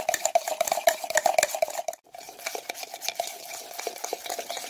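Rapid clinking of a utensil beating instant coffee, sugar and hot water in a mug to whip dalgona coffee foam, with the mug ringing at each stroke. The beating stops for a moment about two seconds in, then starts again.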